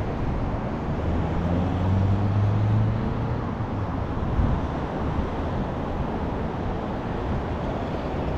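Steady road traffic noise from passing cars. One vehicle's low engine hum swells about a second in and fades after about three seconds, and there is a brief low thump about four seconds in.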